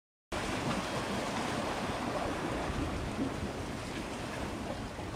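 Steady rushing of wind and sea on an outdoor microphone, cutting in abruptly about a third of a second in.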